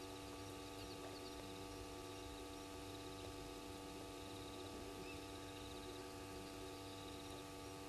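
Quiet night ambience: insects chirping in repeated short trilled runs, high-pitched, over a steady electrical hum made of several fixed tones.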